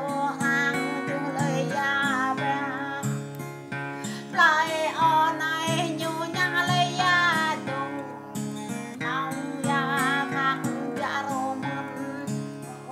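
A woman singing, in phrases with short pauses, to an acoustic guitar strummed along underneath.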